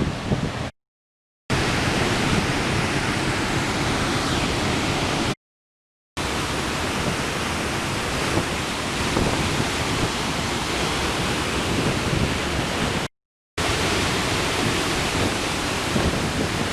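Steady roar of the Sgwd yr Eira waterfall heard close up, an even rush of heavily falling water. It breaks off three times into brief dead silence.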